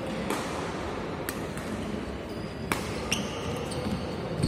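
Badminton rally on a wooden indoor court: several sharp racket-on-shuttlecock hits, with short high-pitched shoe squeaks toward the end, over steady background noise of the hall.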